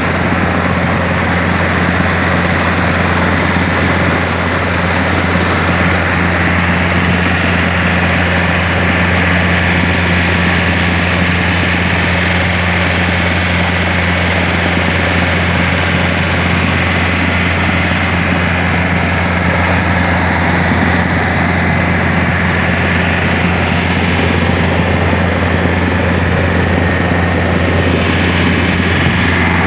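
Engine of a water-pipe drilling machine running steadily at a constant speed, with a deep, even hum.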